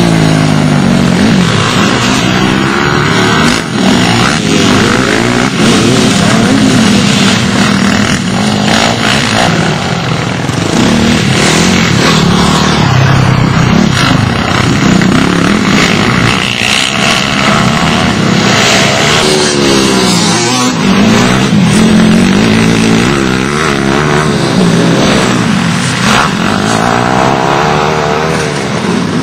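Pit bike engines revving hard and changing pitch again and again with the throttle as the motorcycles ride past.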